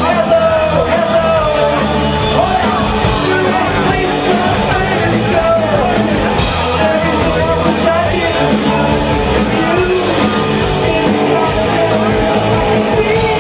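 A rock band playing live with a lead singer over a steady drum beat.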